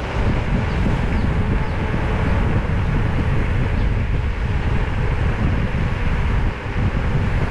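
Wind buffeting the microphone of a camera moving along a road, a steady, rumbling rush of noise with no engine or voice standing out.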